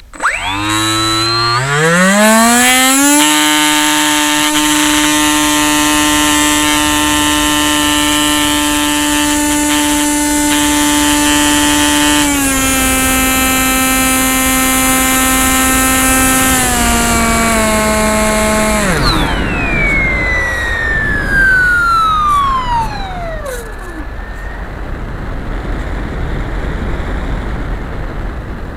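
Bixler RC plane's electric motor and pusher propeller spinning up with a rising whine to a steady high whine, easing down in two small steps, then cut about two-thirds of the way in, the pitch falling away over a few seconds as the prop winds down. After that, steady wind noise as the plane glides with the motor off.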